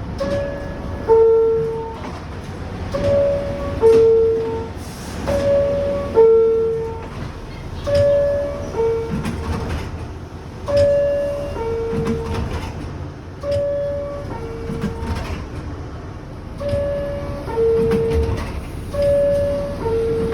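R62A subway car door chime sounding its two-tone falling ding-dong over and over, about every two and a half seconds, over the low rumble of the train.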